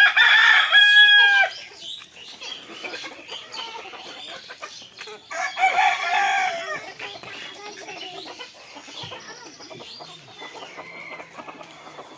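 Rooster crowing twice, at the start and again about five seconds in, over chickens clucking.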